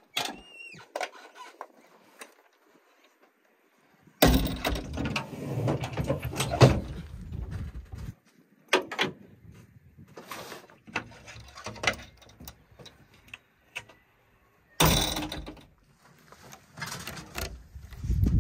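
Clunks, clicks and rattles of a JCB backhoe loader's cab door and fittings, with a loud low rumble lasting about four seconds a few seconds in. Near the end, a key turns in a cab door lock with a sharp click.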